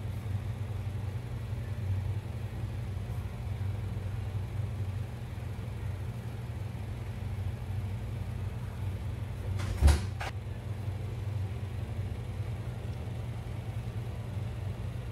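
Steady low hum, with one sharp knock about ten seconds in and a fainter one just after.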